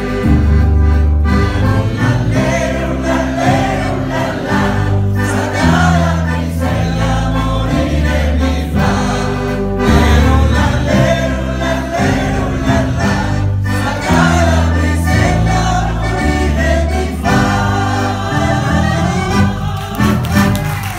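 Women singing a song together into microphones over band accompaniment, with a deep bass line that steps from note to note every second or two.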